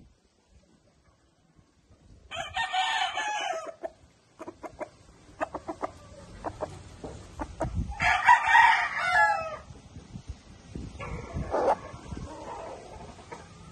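Roundhead gamecock crowing twice, about two seconds in and again about eight seconds in, each crow lasting about a second and a half, with a fainter call near the end. Between the crows come light scattered clicks.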